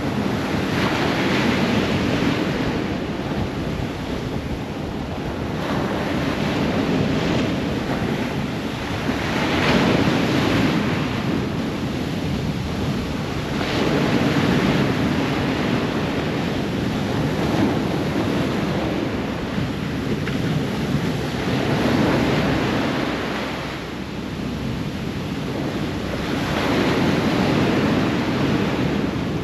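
Ocean waves breaking and washing up the shore, the surf swelling and falling back about every four seconds over a steady low rumble.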